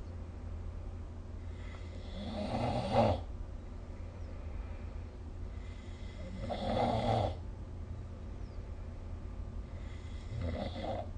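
A sleeping person snoring: three snores about four seconds apart, each lasting a second or so, with the loudest near the start.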